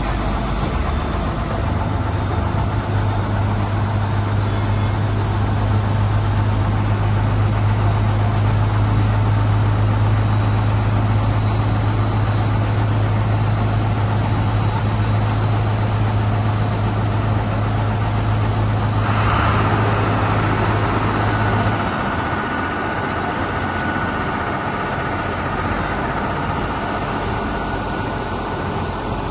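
Heavy road-paving machinery running with a steady diesel engine note and a strong low hum. The hum cuts off about 22 seconds in, leaving the engine running with a steady higher whine.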